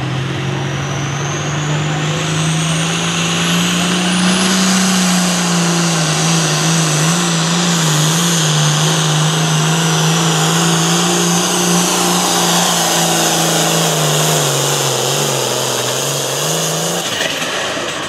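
Turbocharged International Harvester hot farm pulling tractor's diesel engine at full throttle under the load of the sled. A loud, steady engine note, with a turbo whistle rising over the first few seconds and the pitch wavering a few times. The engine drops away about a second before the end.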